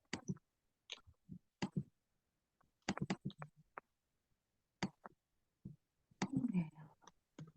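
Scattered, irregular clicks and taps, with a brief muffled murmur a little after six seconds.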